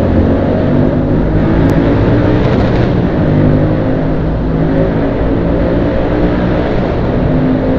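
Motorcycle engines running at speed inside a road tunnel, led by the very loud exhaust of a GT motorcycle riding just ahead. The engine notes hold steady and shift slightly in pitch, over a constant rush of wind and road noise.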